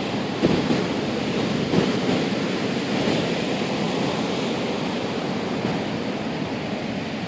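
Ocean surf crashing in strong wind: a steady rush of breaking waves, with wind buffeting the microphone in a couple of brief low bumps in the first two seconds.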